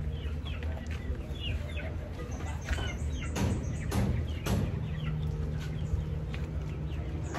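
Chickens clucking, with short high chirping calls scattered through, over a low steady hum and a few knocks.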